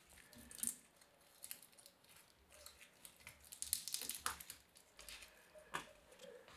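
Faint rustling of dry, papery yucca trunk debris (dried aerial roots and old leaf bases) being picked off by hand, with a few short snaps as pieces break away.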